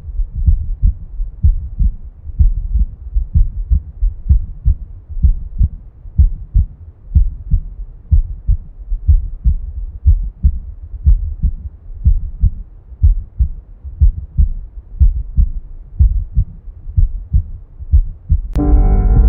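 Normal human heart sounds: a steady rhythm of short, low lub-dub thuds with no murmur between them. About a second before the end, soft sustained music comes in over the beats.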